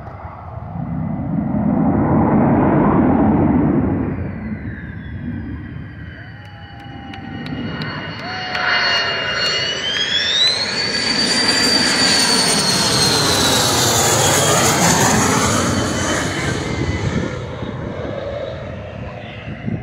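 US Air Force Thunderbirds F-16 fighter jets flying low overhead on their landing approach. The jet rumble swells about two seconds in, dips, then builds again from about eight seconds, with a high whine that rises in pitch as a jet comes over and falls away as it recedes.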